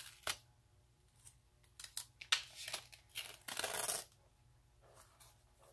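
Hands folding and pressing a glued covering over the end of a notebook cover: light rustles and short scrapes, with a longer scratchy rub about three to four seconds in.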